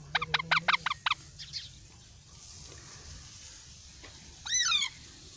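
Parakeet chicks (Indian ringneck and Alexandrine) calling: a quick run of about seven short chirps in the first second, then one longer call falling in pitch near the end. These are the hungry begging calls of young parrots.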